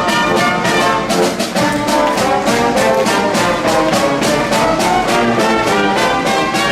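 Wind band playing, trombones and trumpets to the fore, over percussion hits on a steady beat.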